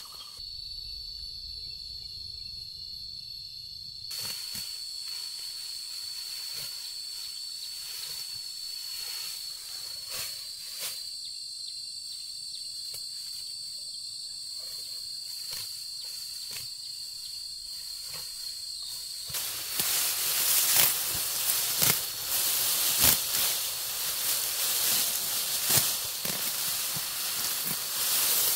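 Insects droning with a steady high-pitched note. About two-thirds of the way in, louder rustling and scraping with scattered sharp clicks takes over.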